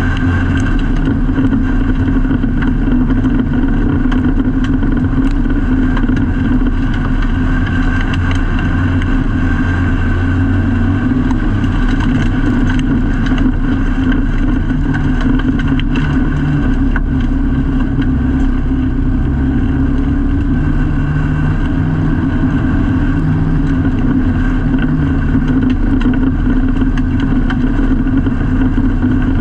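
Autograss race car's engine running hard, heard from inside the stripped-out cockpit, its pitch shifting a little as the car is driven round the dirt track, with scattered sharp clicks and knocks.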